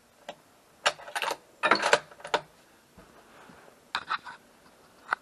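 Several quick clusters of sharp metallic clicks and clacks, the loudest about two seconds in.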